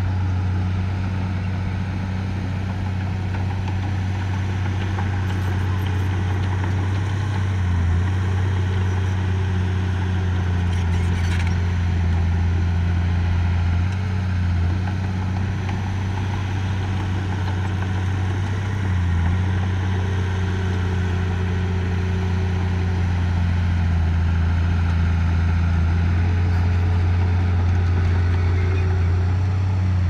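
Diesel engine of a heavy earthmoving machine running steadily under work, its low drone dipping briefly three times.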